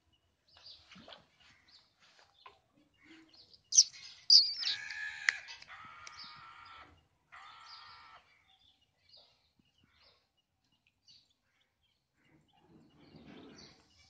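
Muscovy ducklings peeping in short high chirps, the loudest two sharp ones about four seconds in. Right after them comes a longer drawn-out fowl call lasting about two seconds, and a shorter one about a second later.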